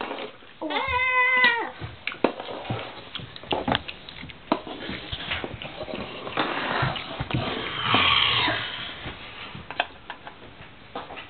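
Plastic toy figures and play pieces clicking and knocking as they are handled on a wooden floor, with one drawn-out meow-like call about a second in and a stretch of hissing noise around eight seconds in.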